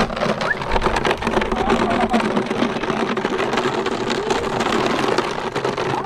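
Continuous loud clattering and rattling: many rapid knocks over a steady low hum, noise made on purpose as a distraction to get a puppy used to loud sounds.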